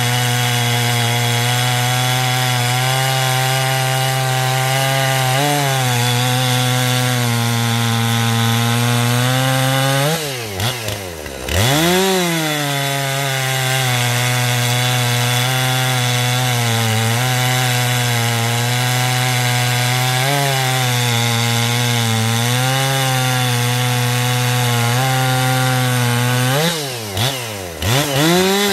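Two-stroke chainsaw running at full throttle while cutting through wood, its pitch wavering slightly under load. Twice, about ten seconds in and near the end, the pitch dips sharply and climbs back as the throttle is let off and opened again.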